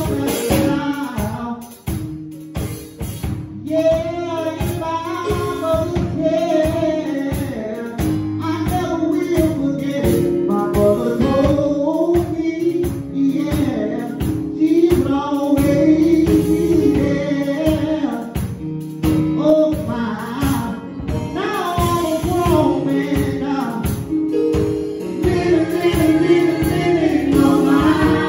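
Gospel song with singing over a steady beat of drums and tambourine.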